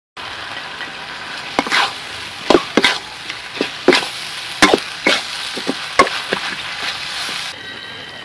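Octopus and vegetables stir-frying in a wok: a steady sizzle, broken by a dozen or so sharp knocks and scrapes of the spatula against the wok as the food is tossed. The knocks stop after about six seconds, leaving only the sizzle.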